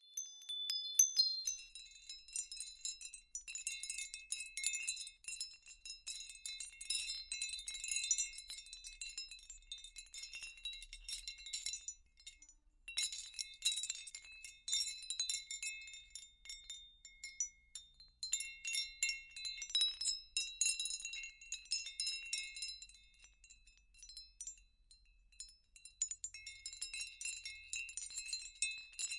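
Wind chimes tinkling: many light, high ringing strikes at an irregular pace, with a brief pause about twelve seconds in.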